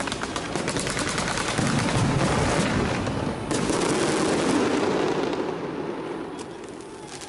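A string of firecrackers going off in a dense, rapid crackle that thins out about five seconds in, leaving a few last pops.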